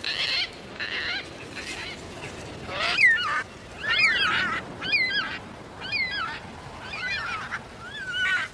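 Cockatoos calling about once a second: harsh, creaky calls at first, then from about three seconds in louder calls that swoop up and down in pitch.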